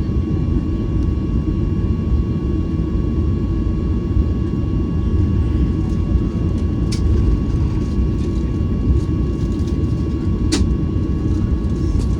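Steady low cabin rumble of a Boeing 737-900ER with its CFM56 engines running, and a thin steady whine over it. Two small clicks come about seven and ten and a half seconds in.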